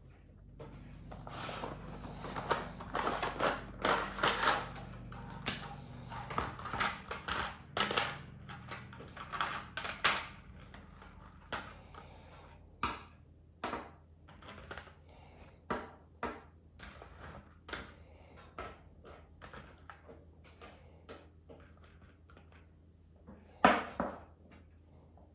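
Clear plastic blister tray crackling as piston cups are popped out of it by hand, with small parts clicking as they are set down on a wooden table. The crinkling is dense for about the first ten seconds, then thins to scattered clicks, with one louder knock near the end.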